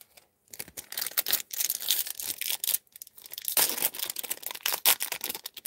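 A foil trading-card pack being torn open and crinkled by hand: a dense run of crackling and crinkling that starts about half a second in.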